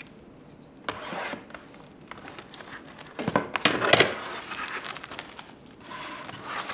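Plastic wrapping crinkling and tearing as a sealed trading card box is opened, in irregular rustles with sharp clicks, loudest about three to four seconds in.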